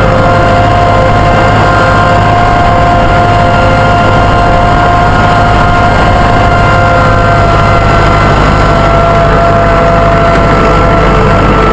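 Massey Ferguson tractor engine running steadily while driving along, with a steady whine over a low rumble that drops slightly in pitch near the end.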